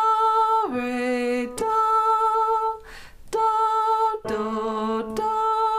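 A woman singing solfege, "do, do, do", as a descending-octave ear-training exercise: a held high A, a drop to the A an octave below, and back up to the high A, sung twice with a short breath between.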